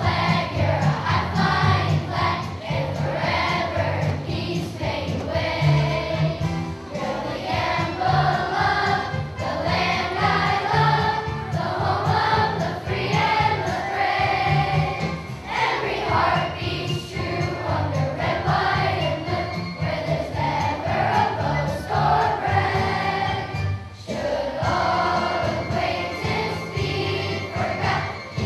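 Children's choir singing a song over instrumental accompaniment.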